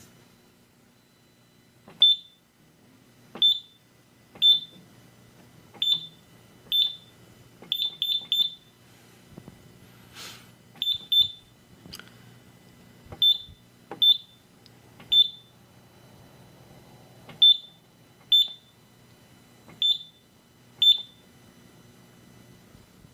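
Keypad of a Simplex 4100U fire alarm control panel giving short, high electronic beeps, each with a click, as its buttons are pressed one after another at uneven intervals.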